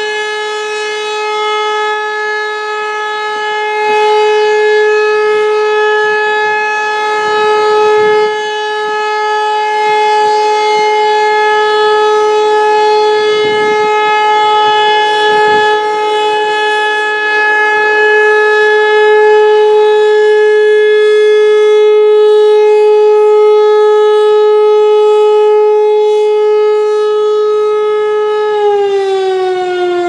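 ASC T-135 AC/DC rotating mechanical warning siren sounding a steady single alert tone as its horn turns, the loudness swelling and easing as it sweeps round. Near the end the pitch starts to fall as the siren winds down.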